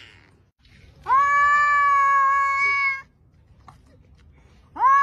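Domestic cat yowling: two long drawn-out calls, each held at a nearly steady pitch for about two seconds, the second starting near the end. It is the kind of yowl cats give when squaring up to each other face to face.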